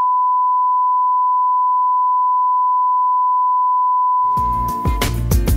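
Steady 1 kHz line-up test tone of a bars-and-tone leader, one unbroken pure pitch. About four seconds in, music with drums and bass starts, and the tone stops about a second later.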